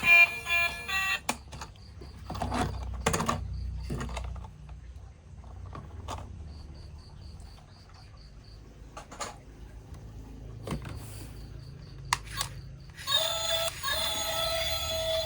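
Scattered clicks and knocks of plastic toy vehicles and packaging being handled, with two short runs of quick, evenly spaced high beeps. Music stops about a second in and comes back near the end.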